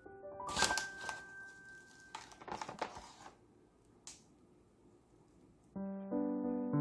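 Soft piano background music that falls away in the middle and comes back in near the end, with two short bursts of kitchen noise about half a second and two seconds in and a single sharp click about four seconds in.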